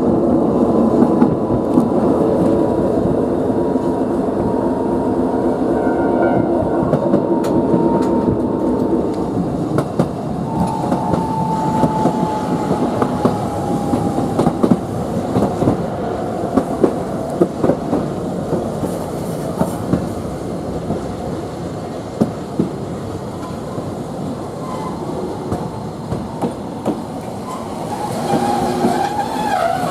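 Toei Arakawa Line streetcar heard from inside the car: the electric traction motor whines, its pitch slowly falling, over a running rumble, with the wheels clicking over rail joints. Near the end the wheels squeal briefly.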